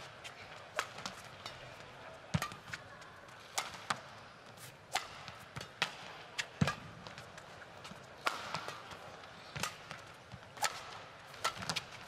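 A badminton rally: sharp hits of rackets striking the shuttlecock, coming about every second and sometimes in quick pairs, mixed with players' footfalls on the court.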